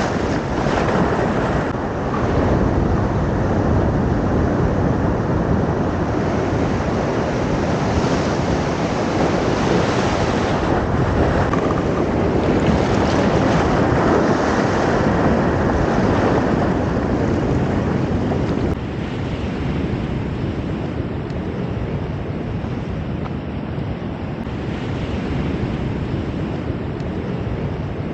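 Ocean surf rushing and foaming over shoreline rocks, with wind on the microphone. About two-thirds of the way through the sound drops abruptly to a quieter, more even wash of surf.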